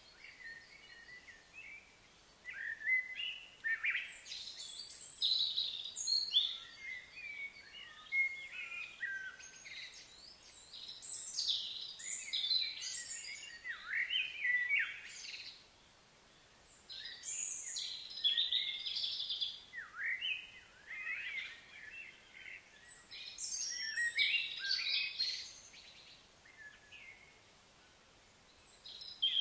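Wild birds chirping and singing: short chirps, trills and quick sweeping calls come in clusters every few seconds, with brief pauses between them.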